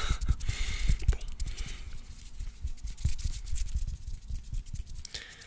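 Scissors handled and snipped close to the microphone: a string of sharp clicks, with a rustle over the first two seconds and low handling thumps.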